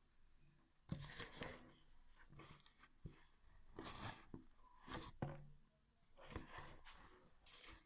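Hands kneading and pulling a sticky homemade flour-and-water dough, making a string of short, irregular squishes.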